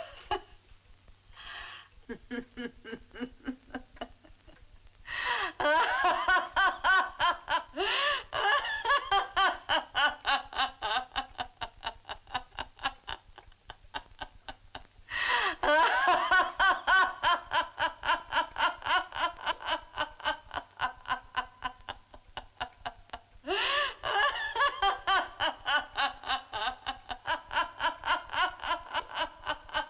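A woman laughing, long and loud, in rapid pulses of "ha-ha-ha": softly at first, then in three long bouts that each break out afresh, about five seconds, fifteen seconds and twenty-three seconds in.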